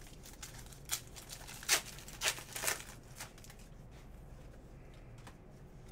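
Trading cards sliding and rustling against each other as a stack is flipped through by hand: about five short swishes between one and three seconds in, then only a faint low hum.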